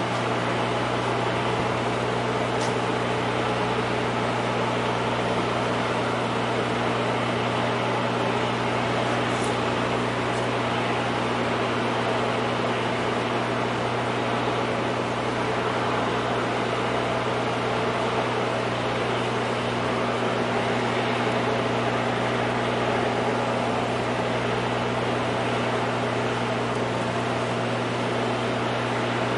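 Steady mechanical drone: a low engine-like hum with a wide hiss above it, unchanging throughout.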